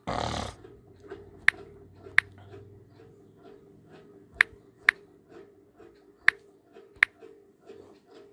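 Six sharp clicks in three pairs, each pair about half a second apart, over a faint steady hum, with a short hiss-like burst of noise at the very start.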